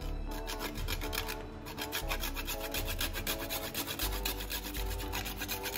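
A whole nutmeg rasped back and forth on a fine metal grater: quick, even scraping strokes, several a second.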